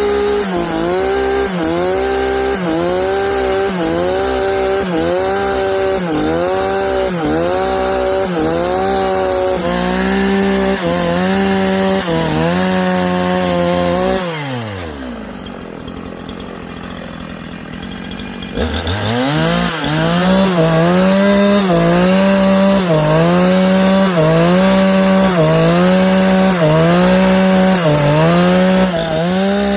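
Two-stroke chainsaw cutting a large log under load, its engine pitch sagging and recovering about once a second. About halfway through it drops to idle for a few seconds, then revs back up and cuts again.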